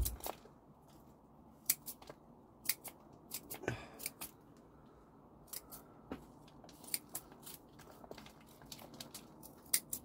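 Small secateurs snipping through the hard, dried stems of a dahlia tuber clump: a series of sharp clicks at uneven intervals, with a longer crunching cut about four seconds in.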